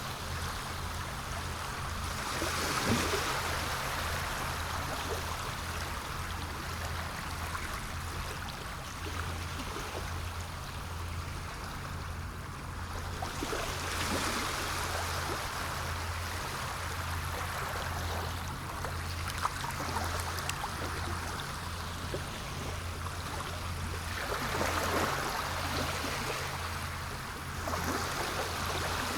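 Sea surf: a steady wash of water noise with waves swelling and falling back every several seconds.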